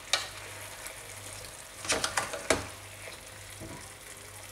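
Chicken and potatoes sizzling in oil in an aluminium pot, stirred with a spoon that scrapes and knocks against the pot: one knock just after the start and a quick cluster of knocks about two seconds in.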